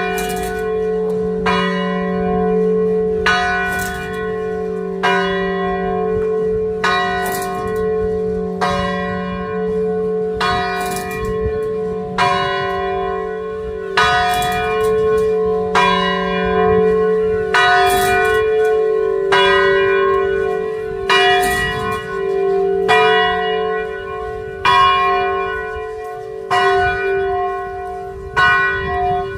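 Shitsu Church's bell tolling steadily, one stroke a little under every two seconds, each strike ringing on into the next with a long hum.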